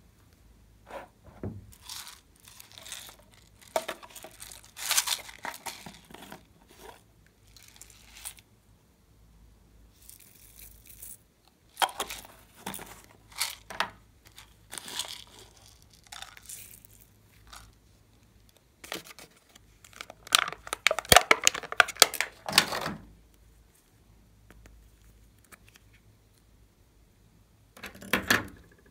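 Hands handling small plastic containers of clay and toy pieces over a glass dish of slime: irregular bursts of rustling and crackling with clicks and taps. The longest and loudest burst comes about two-thirds of the way through.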